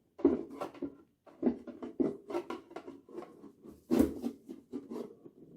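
Booster packs and their cardboard box being handled: irregular rustling and crinkling with light knocks, one louder knock about four seconds in.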